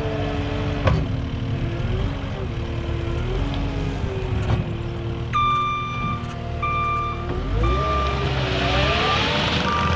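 Cat 289D skid steer's diesel engine running and revving under load, with its reversing alarm beeping repeatedly from about halfway through as the machine backs up.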